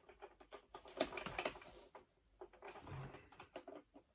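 Scattered light clicks and taps of hands handling the plastic and metal parts of a mechanical Santa figure during disassembly, with a sharper click about a second in.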